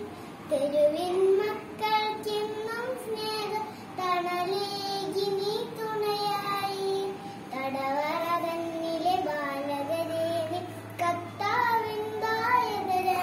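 A young girl singing a song solo, her voice moving through a melody with held, gliding notes and short breaths between phrases.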